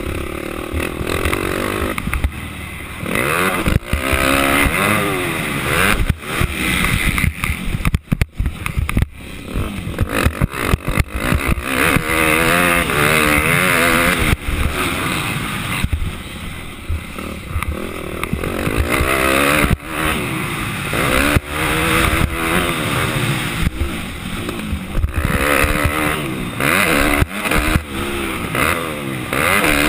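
250-class motocross bike engine at race pace, heard from the rider's helmet: its pitch sweeps up and down over and over as the throttle is opened and chopped, with frequent brief drops in level between the pulls.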